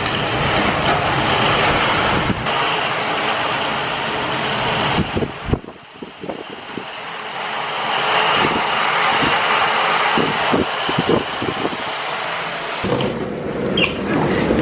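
Thunderstorm downpour: heavy rain and strong gusting wind, with the wind buffeting the microphone in low thumps. It dips briefly about six seconds in.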